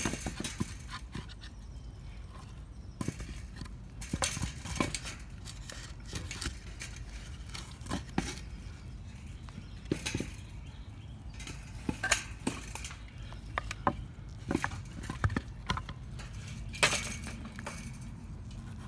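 Irregular knocks and clicks over a low rumble, several a second at times: handling and movement noise from the phone as the ground is filmed and pieces of wood are worked on.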